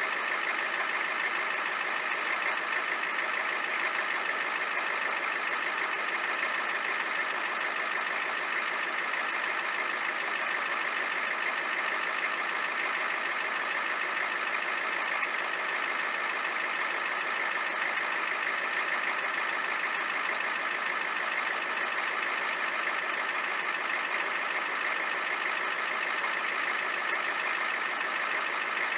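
1993 Ford F-350's 7.3 L IDI diesel engine idling steadily while warming up after a cold start.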